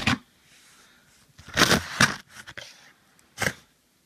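Packing tape and cardboard being torn and pulled open on a heavily taped shipping box: a few short tearing and scraping sounds, the loudest about a second and a half to two seconds in, and a brief one near the end.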